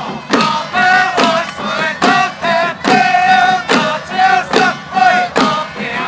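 Group of men chanting together in unison, with drawn-out held notes, over a sharp clack or knock that recurs roughly once a second.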